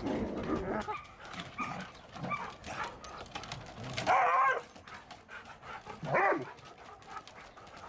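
Dogs at play, one dog giving a loud bark about four seconds in and a shorter bark about two seconds later.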